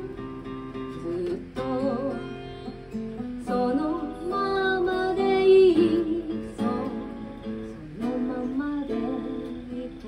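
A woman singing live while accompanying herself on an acoustic guitar, with vibrato on the held notes and short gaps between sung phrases.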